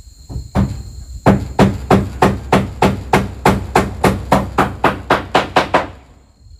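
Hammer nailing up a room wall, striking in quick, steady blows about three a second, then stopping near the end. A steady high insect drone in the background.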